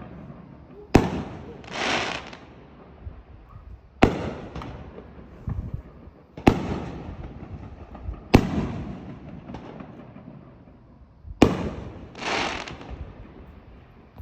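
Fireworks bursting overhead: five sharp bangs a few seconds apart, each trailing off in a rumble. A hissing, crackling rush follows the first and the last bang.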